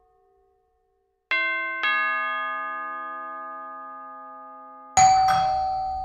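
Ding-dong doorbell chime: after about a second of near silence, two bell tones strike about half a second apart and ring out, fading slowly. About five seconds in, a louder strike with a sharper, noisier attack starts another ringing tone.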